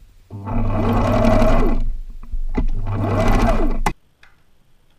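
Husqvarna Zig-Zag 1010 sewing machine stitching in two short runs of about a second and a half each, with a brief pause between them. It stops abruptly with a click near the end.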